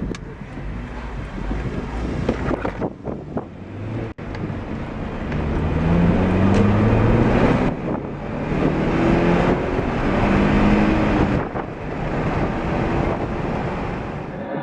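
Car engine pulling through the gears on a manual-shift Acura TSX: the engine note rises, drops at a gear change, and rises again, twice over, with road and wind noise underneath.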